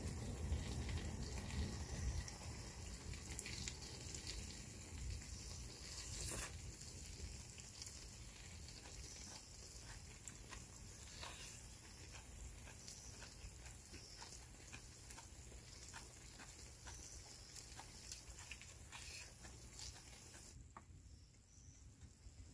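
Meat sizzling in a pan over a small fire-pit stove, with scattered small crackles and pops. The sound drops away suddenly near the end.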